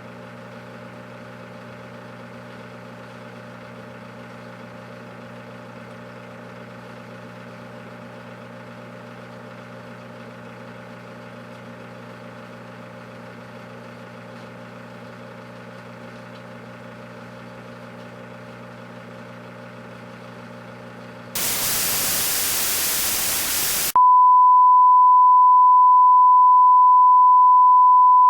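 Microwave oven running with a steady hum. About 21 seconds in it cuts suddenly to a couple of seconds of loud hiss like TV static, then to a loud, steady single-pitched beep tone.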